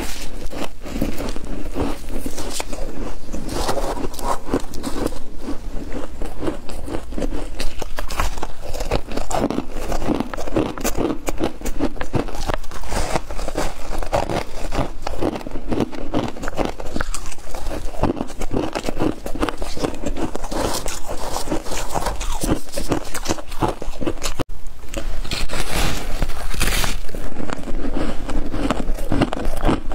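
Chunks of soft freezer frost being bitten and chewed close to the microphone: a dense, continuous run of crackling crunches.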